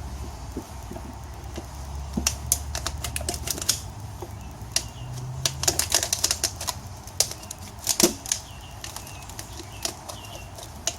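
Metal tire irons clicking and scraping against a motorcycle wheel rim as a new tire's bead is pried on: a quick, irregular run of sharp clicks and taps, thickest in the middle of the stretch, over a low hum.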